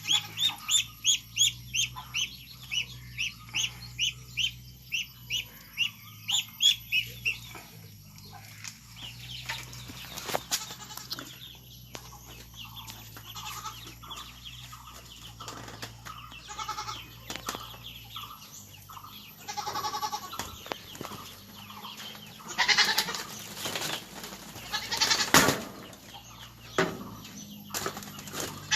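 Poultry calling: a fast run of short repeated calls, about two to three a second, for the first seven seconds or so, then scattered calls and a few sharp knocks.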